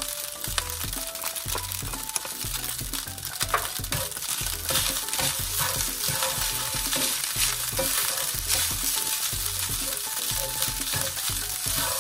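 Fried rice sizzling in a hot cast-iron skillet while a plastic spatula stirs and scrapes it around the pan: a steady high sizzle broken by frequent short scraping strokes.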